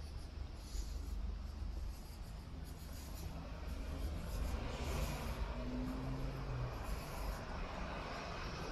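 Street traffic: a steady low rumble, with a motor vehicle approaching and growing louder from about halfway through.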